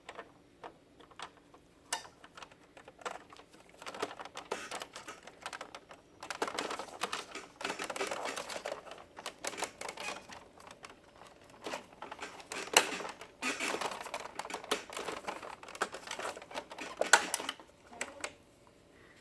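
Plastic parts of a laser printer's automatic document feeder clicking, snapping and scraping as the separation pad and rollers are handled and fitted into place. There are scattered sharp clicks, with denser rattling and scraping in two stretches of a few seconds each.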